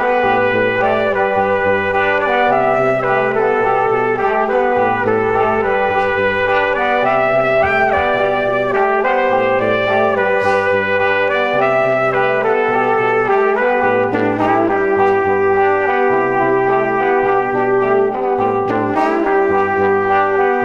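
Background music with a brass-like melody over a held note and a bass line that changes note about once a second.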